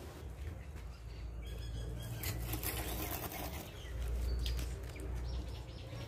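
Strutting tom turkeys drumming: a low rumble, loudest about four seconds in, with light rustling of feathers.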